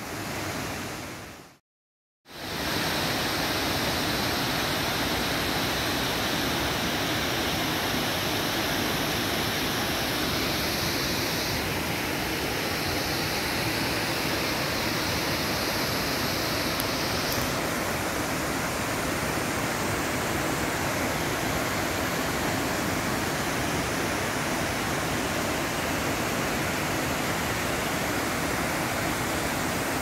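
Savica waterfall pouring into its plunge pool: a steady, loud rush of falling water that starts about two seconds in after a brief gap.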